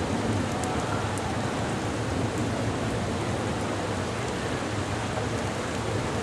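Heavy rain pouring down in a steady downpour, with a few faint drop ticks.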